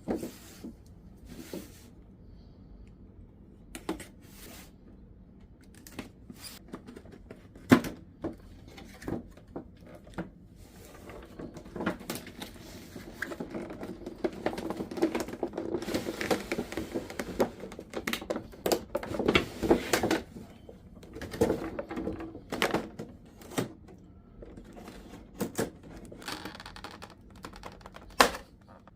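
Packaging of a boxed statue figure being opened by hand: scattered taps, clicks and knocks on cardboard and plastic, with a denser stretch of rustling and crinkling in the middle.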